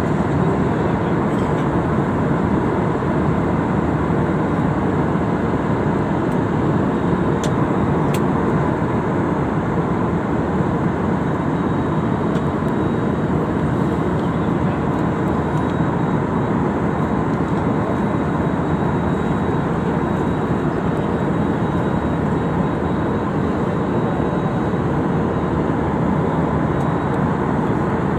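Steady engine and air noise inside a passenger airliner's cabin in flight: a dense, even noise that holds the same level throughout.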